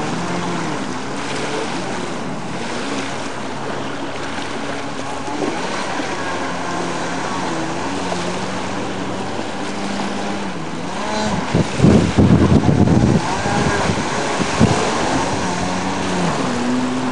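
Yamaha Wave Blaster jet ski's two-stroke engine revving up and falling back again and again over the rush of water. A loud rush of noise breaks in for about two seconds around twelve seconds in.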